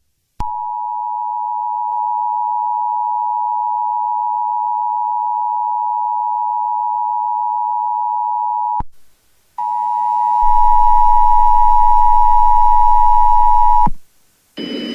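Emergency Alert System two-tone attention signal, two steady tones sounding together near 900 Hz. It holds for about eight seconds, breaks off briefly, then sounds again for about four seconds, louder and with a low hum under it. Just before the end a different, noisier sound begins.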